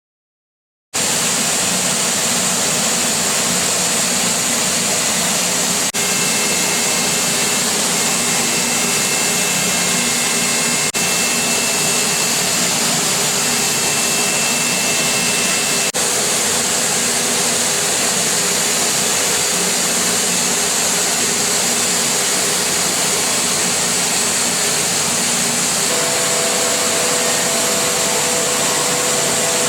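CNC machining center cutting with an NS TOOL PCD radius ball end mill at high spindle speed, heard as a loud, steady hiss with faint high steady tones under it. It starts abruptly about a second in.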